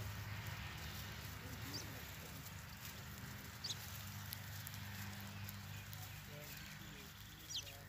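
A few faint, short chirps from a flock of sparrows foraging on a straw pile, three in all, the loudest near the end, over a low steady hum.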